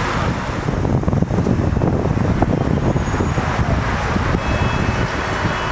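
Road traffic noise from slow-moving cars, with wind rumbling on the microphone.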